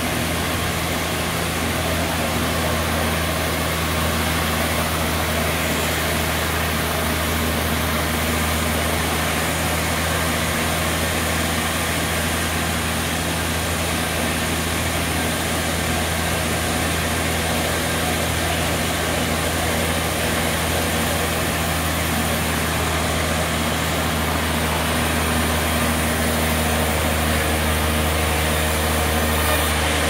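Sawmill machinery running steadily, a constant engine-like hum with no breaks.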